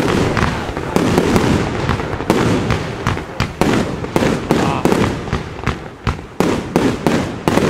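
A Gau 'Hammer' 60-shot compound firework cake firing in quick succession: a fast, irregular string of sharp reports from the shots and bursting shells, several a second, over a continuous noise of launches and crackle.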